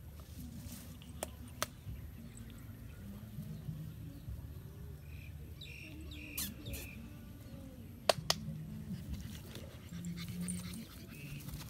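Sounds of a pug dog, with a few sharp clicks, a pair about a second in and another pair about eight seconds in, and a brief high squeak about halfway through.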